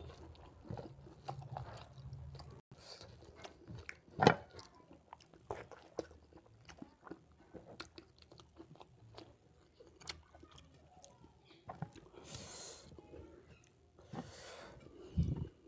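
Close-miked eating by hand: fingers mixing rice and curry on a plate, and chewing with wet mouth sounds. The loudest is one sharp click about four seconds in.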